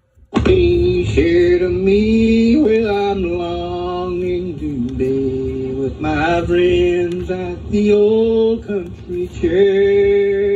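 Coonhounds baying in long drawn-out howls that overlap, each note bending up at its start and then held, on an old portable tape-recorder recording. The recording drops out briefly at the very start.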